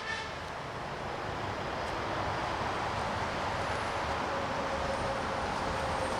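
Steady running and rolling noise from hi-rail vehicles on the track. A brief pitched horn-like tone is heard right at the start.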